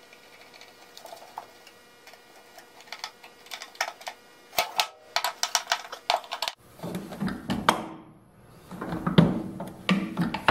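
Hand tools working a bolt in a wooden pedal arm of a retracting-caster stand: a quick run of sharp clicks about halfway through, then heavier knocks and clatter of wood and metal.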